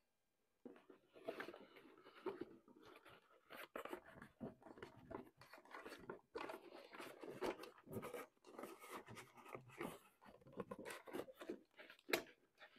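Faint rustling, scraping and light knocks of an EVAP smoke leak machine and its cables being pushed and shifted into a cardboard box by hand.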